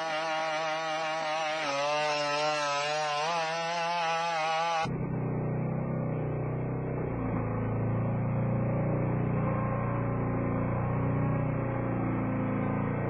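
Boston Dynamics BigDog robot's two-stroke engine and hydraulic power unit running with a loud, steady buzz whose pitch wavers up and down as the legs work. About five seconds in, the sound abruptly turns duller and lower.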